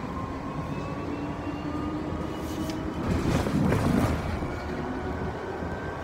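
City bus in motion, heard from inside the cabin: a steady running rumble with a whine that rises slowly in pitch as the bus gathers speed. There is a louder rumble about three to four seconds in.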